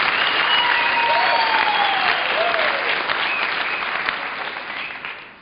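Audience applauding, with a few voices calling out over it. The applause dies away near the end.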